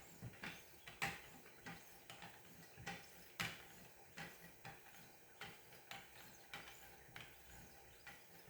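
Faint, quick strokes of leather strop paddles along a knife edge on a guided sharpening system, about two to three a second.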